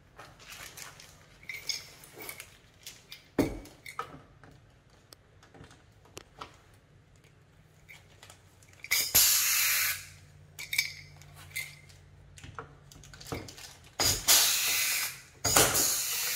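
Pneumatic pop-rivet gun setting blind rivets to fasten a canard to a car's front bumper: three loud blasts of air hiss, one about nine seconds in and two close together near the end. Earlier there are scattered clicks and one sharp knock.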